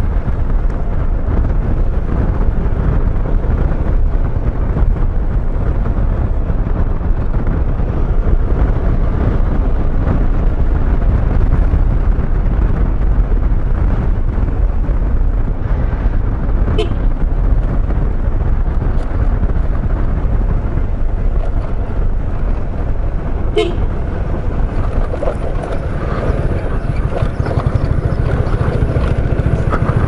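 Scooter ride heard from the rider: steady wind rush over the microphone with the scooter's engine and road noise underneath. Two short sharp clicks a little past halfway.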